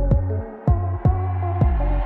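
Electronic music with a deep, sliding bass and a heavy beat.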